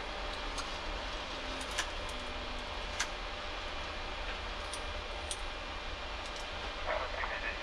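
Switches on a Boeing 737-800's overhead panel being flipped one by one: a scattering of short, sharp clicks, the loudest about three seconds in. They sound over the steady hum of the flight deck.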